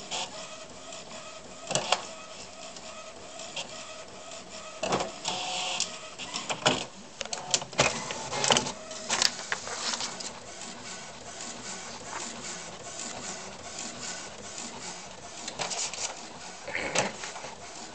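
All-in-one desktop printer running as it feeds and prints paper, a steady mechanical whir. Sharp rustles and taps of paper come several times, clustered near the middle, as a cat paws at the printed sheets in the output tray.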